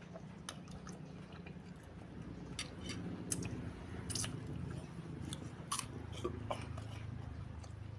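Close-miked chewing of small beef meatballs (bakso krikil) and noodles, with sharp wet mouth clicks and smacks scattered through.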